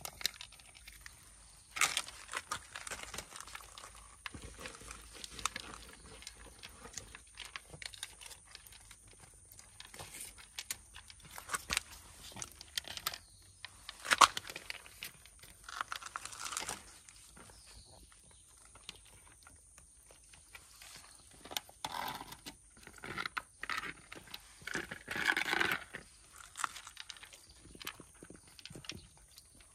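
Cats chewing food: irregular crunching and clicking, heavier about three quarters of the way through.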